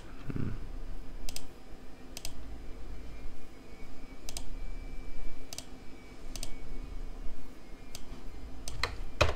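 Computer keyboard typing: about ten separate keystrokes spread unevenly over several seconds, with a louder pair near the end.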